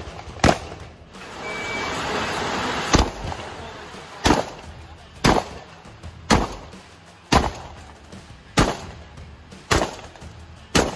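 Shotgun shots fired in a steady string at roughly one a second, nine in all: one about half a second in, then eight more after a gap of a couple of seconds filled with a rushing noise.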